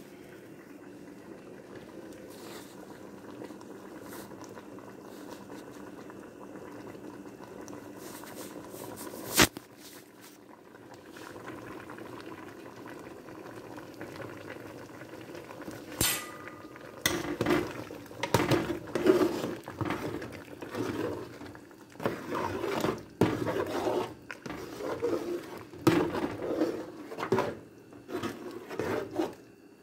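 A pot of margoug stew bubbling steadily, with one sharp clink about nine seconds in. From about seventeen seconds a metal ladle scrapes and knocks irregularly against the aluminium pot as the stew is stirred.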